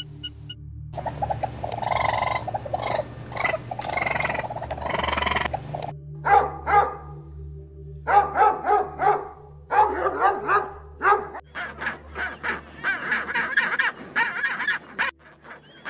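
African penguins calling: a long run of harsh calls with short breaks in the first few seconds, then, after a brief pause, rapid runs of short calls.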